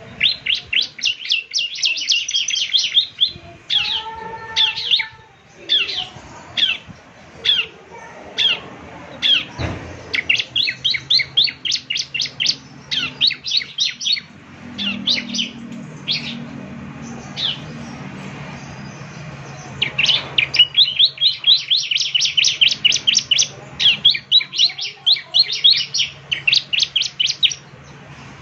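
Ciblek (prinia) singing in full, energetic 'gacor' song: fast runs of sharp, high chirping notes in bursts, with short pauses between runs. A faint low hum lies underneath in the second half.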